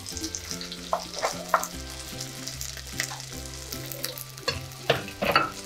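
Chopped shallots sizzling as they go into hot oil in a clay pot, with a steel spoon stirring and knocking against the pot several times. Soft background music with steady held notes underneath.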